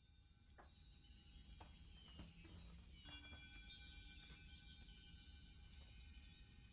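Background music of high, chiming tones scattered over a soft bed, with a few faint clicks.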